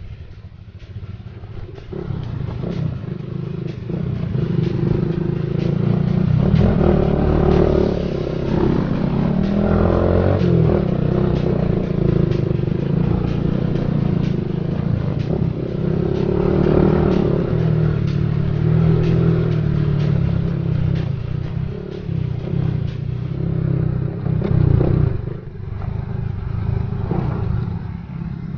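Small motorcycle engine running as it is ridden over a rough dirt trail, its revs rising and falling, with frequent rattles and knocks from the bike jolting over bumps.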